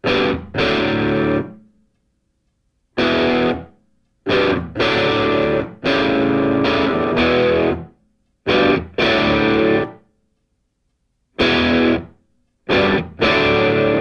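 Distorted electric-guitar rock music played as stop-start riffs: loud chord blasts that cut off abruptly into total silence, about a dozen times.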